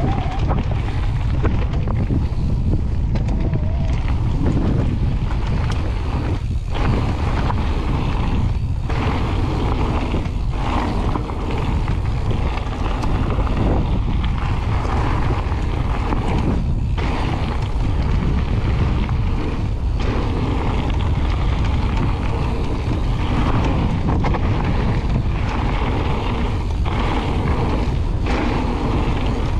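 Wind buffeting on the camera microphone over the rumble of mountain bike tyres rolling along a gravel trail. The sound is a loud, steady roar that is heaviest in the lows.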